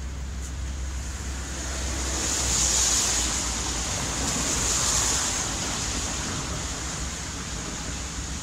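Traffic on a wet road: tyres hissing on the wet surface, swelling twice as vehicles go by, over a low hum that fades about two seconds in.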